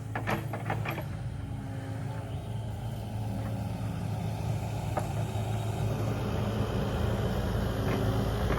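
Kubota KX080 mini-excavator's diesel engine running steadily under load while it pulls up brush, growing slightly louder toward the end, with a few light knocks, one about five seconds in.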